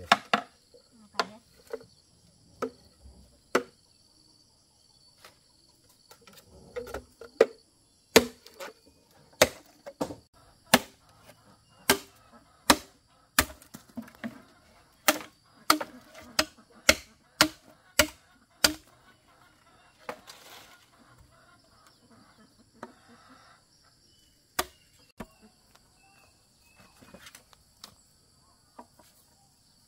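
Machete chopping into a bamboo pole: sharp, separate strikes, a few light ones at first, then about two a second through the middle, thinning out toward the end. Insects trill steadily underneath.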